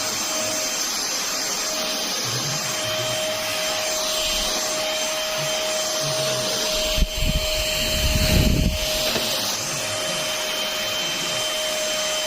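VersLife S6PRO cordless stick vacuum running steadily with a constant whine. A knock comes about seven seconds in, then a second or so of louder low rumbling.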